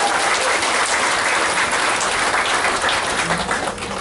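Audience applauding a choir's just-finished song: dense hand clapping that thins out and fades near the end.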